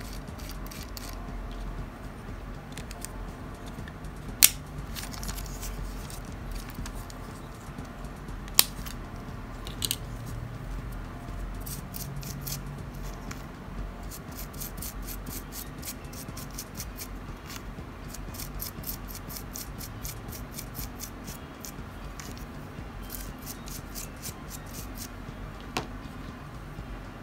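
An old toothbrush scrubbing the plastic gears and motor pinion of a Mini 4WD chassis in runs of quick scratchy strokes, to clear plastic residue worn off the meshing gears. Plastic chassis parts being handled give a few sharp clicks, the loudest two in the first third.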